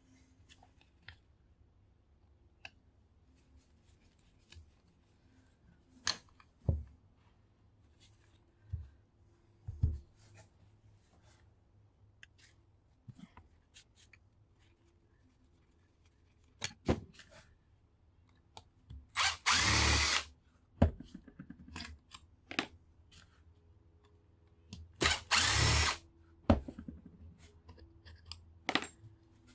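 Power drill/driver running in two short bursts of about a second each, backing screws out of a circular saw's housing, about two-thirds of the way through and again near the end. Between the bursts, scattered clicks and knocks of the tool and metal parts being handled.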